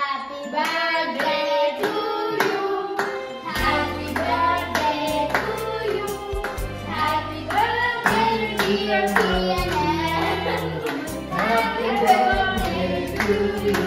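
A birthday song: singing over backing music, with a bass line coming in about three and a half seconds in, and hands clapping along.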